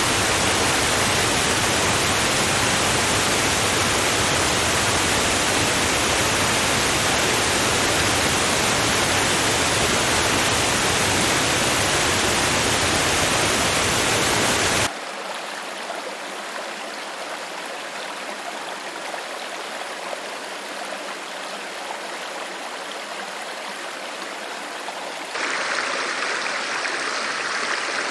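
Flowing water in three spliced recordings: a loud, full, deep rush of water cuts off abruptly about halfway through to a quieter, thinner brook. Near the end a louder stream takes over, with a faint high steady whine.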